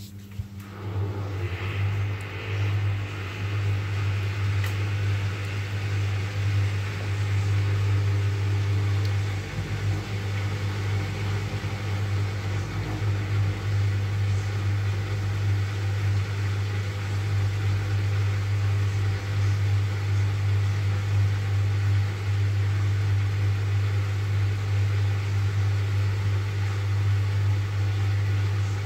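Hotpoint front-loading washing machine's drain pump starting about a second in and running with a steady hum, water gurgling through it. The machine is pumping out during a suds lock, set off by too much foam in the drum.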